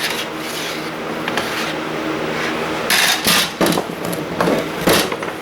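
Server blade parts clattering as they are handled and set down, with several short clatters in the second half. A steady hum runs underneath.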